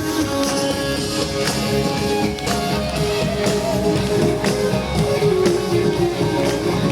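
Live band playing an instrumental passage between vocal lines, with guitar over a steady beat of about two hits a second.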